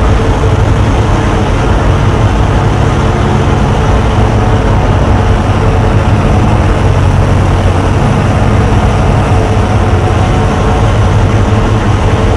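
Loud, steady wall of amplified noise from contact microphones on a calculator scraped against sandpaper and on an angle grinder cutting through a car tire, with a steady low hum underneath.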